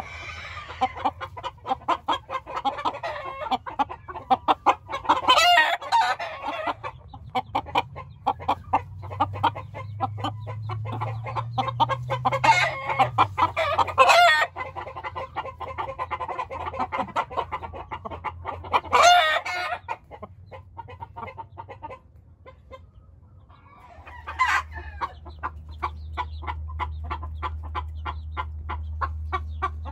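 Game roosters and chickens clucking almost without a break, with loud rooster calls, likely crows, standing out several times: about 5 s in, twice around 12–14 s, near 19 s and about 24 s in. A steady low hum comes in for the last few seconds.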